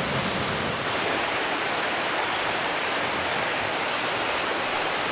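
Huay Kaew waterfall: a steady rush of falling water.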